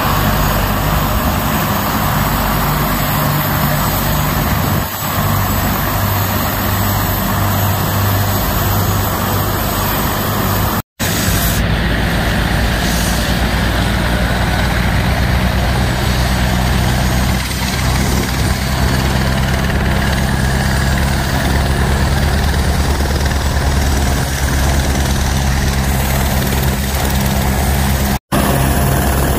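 Helicopter engine and rotor running steadily on the pad, a loud low drone that holds even throughout, broken by two brief gaps.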